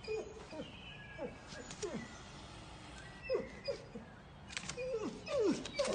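A dog whining in a string of short, falling whimpers, about a dozen of them, a few louder near the end.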